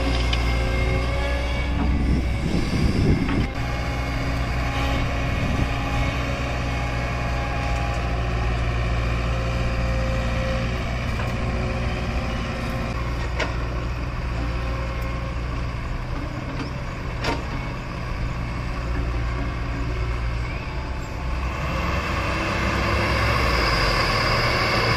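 Tata Hitachi Zaxis 120 excavator's turbocharged Isuzu diesel running steadily under working load while it loads a tipper truck. About two seconds in, a bucketful of earth and stone tips into the steel truck bed with a rough clatter, a couple of sharp knocks follow later, and near the end the engine gets louder.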